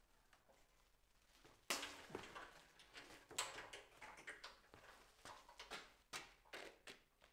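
Faint knocks, clinks and rattles from the metal bars of a rear X-brace chassis-reinforcement kit being handled and unhooked from its hanging wires. There is a sharp knock about a second and a half in, then a run of lighter clicks and knocks.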